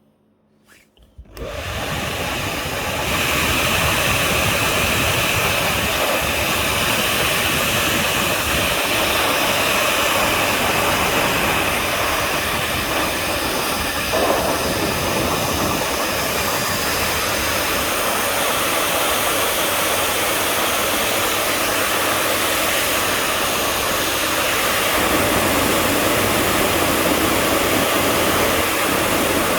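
GHD hair dryer switched on about a second in and then blowing steadily.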